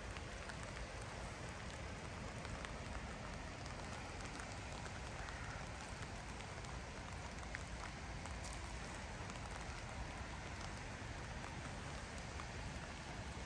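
Light rain falling: an even, steady hiss with scattered faint drop ticks.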